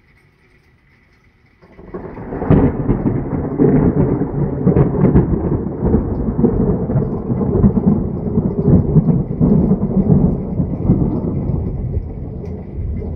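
Thunder: a thunderclap breaks in suddenly about a second and a half in and rolls on as a long, loud, deep rumble with a few sharp cracks in its first seconds, easing off slightly near the end.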